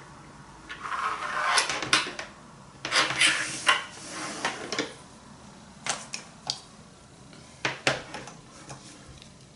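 Objects being handled at close range: two stretches of rustling mixed with clicks and knocks in the first half, then a few separate sharp clicks.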